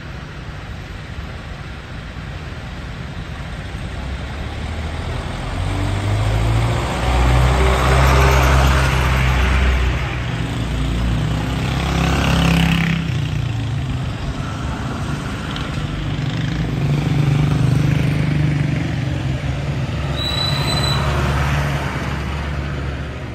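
Idling and creeping traffic, with a motorcycle-engined tricycle running close by. It grows louder and passes right alongside about halfway through, then more engine noise builds again. A brief high squeal sounds near the end.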